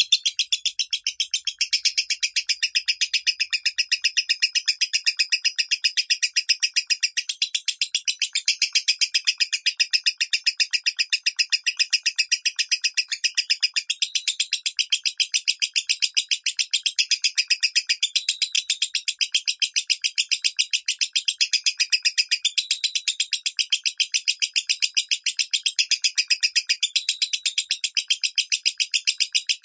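Lovebird singing in the 'minor' style: a long, unbroken stream of rapid, high, short chirps, many each second, without a pause.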